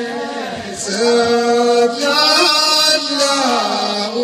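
A group of men chanting together in Ahouach, the Amazigh collective song. The voices hold long notes that slide up and down in pitch.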